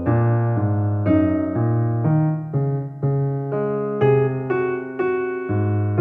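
Background piano music, with a new note or chord about every half second.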